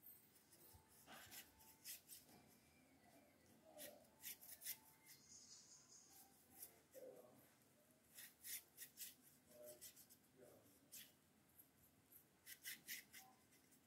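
Faint scratchy strokes of a paintbrush dragging paint across ridged bamboo slats, coming in short runs of several strokes with brief pauses between.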